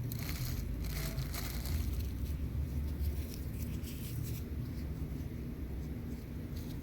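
Hands working garden soil while planting garlic: short scratchy rustles, mostly in the first couple of seconds and again near the end, over a steady low rumble.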